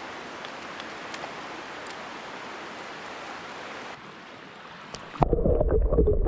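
Clear mountain stream running steadily. About five seconds in, the microphone goes under the water and the sound turns to a loud, muffled underwater rumble.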